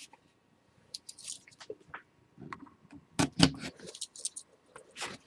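Soft rustling and light clicks of trading cards being handled and flipped through, a little louder about three seconds in.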